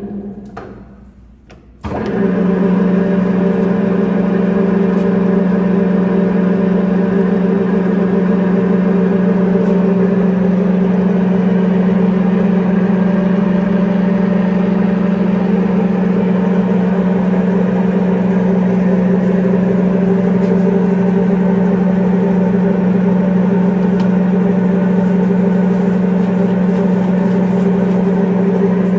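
Jet GH-1660R geared-head engine lathe running. The drive dies away at the start, then about two seconds in the motor switches on abruptly and the lathe runs at a steady speed with a steady hum.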